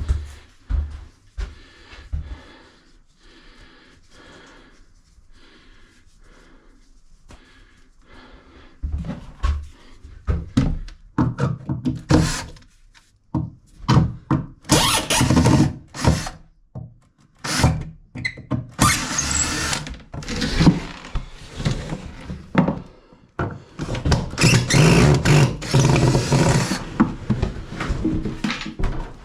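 Irregular knocks, thuds and clattering from hands-on work in a room. It is faint for the first several seconds, then turns busy and loud with overlapping bangs and scraping bursts.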